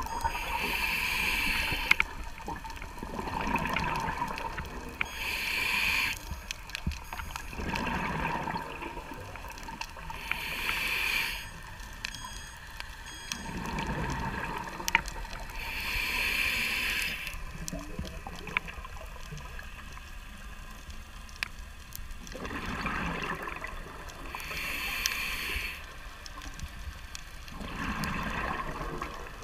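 Scuba diver breathing through a regulator underwater: a hissing inhale, then a low gurgling rush of exhaled bubbles, repeating about every five seconds.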